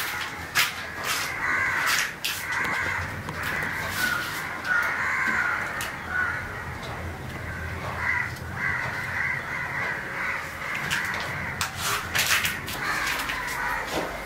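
Crows cawing repeatedly, with scattered sharp clicks.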